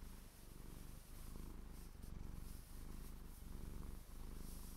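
Hands and fingernails rubbing and scratching over knitted socks: a low, fast-rippling rasp in strokes of about a second, with brief breaks between them.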